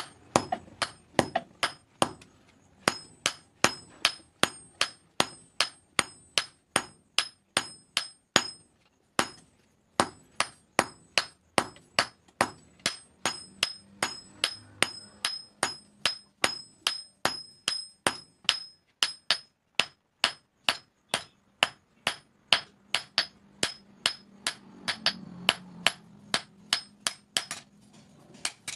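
Hand hammer forging a red-hot steel knife blade on an anvil: steady blows about two a second, each with a high metallic ring, with a brief pause about nine seconds in.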